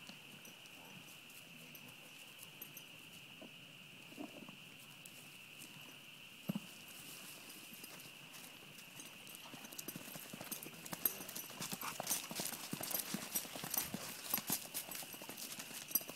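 Hoofbeats of a ridden Tennessee Walking Horse filly on turf, a run of sharp knocks that grows louder and denser in the second half, over a steady faint high-pitched hum. A single louder knock comes about six and a half seconds in.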